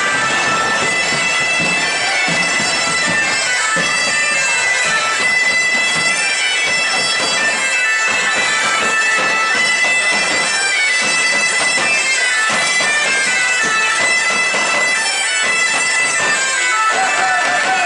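Bagpipes playing a tune over their steady drone, loud and close.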